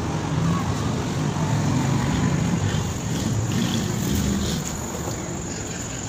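A motor or engine running steadily with a low rumble.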